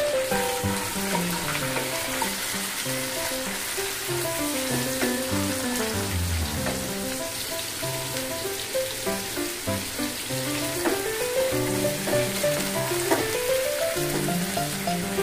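Small chicken pieces sizzling steadily as they fry in butter in a pan, stirred now and then with a wooden spatula, under background music with a stepping melody.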